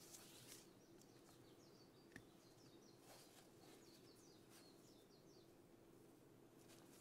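Near silence: soft rustling of a satin pointe shoe and its ribbons being handled, with one sharp click about two seconds in. A faint bird sings a quick run of repeated chirps in the background over a low steady hum.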